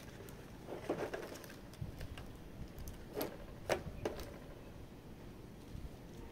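Hands handling a collectible figure and its packaging: light rustling with a scattering of small clicks and taps, the sharpest two a little after three seconds in.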